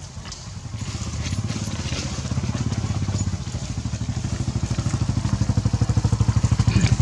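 A small engine running with a fast, even low pulse, growing steadily louder.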